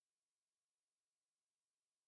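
Digital silence: only a very faint, even hiss.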